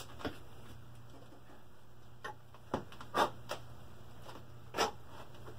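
A handful of light, scattered clicks and taps as small greasy transmission parts (bushings, thrust bearings) are handled, over a steady low hum.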